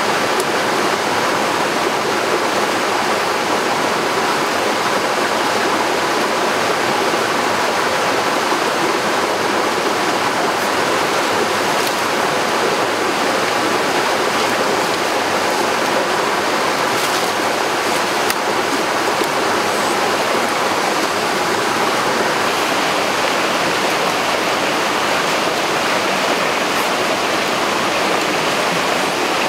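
Steady rushing of a waterfall and stream pouring over rocks, with a few faint ticks about halfway through.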